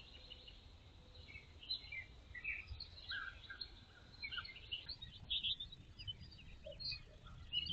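Faint songbirds chirping and calling, many short notes scattered throughout, over a low background noise.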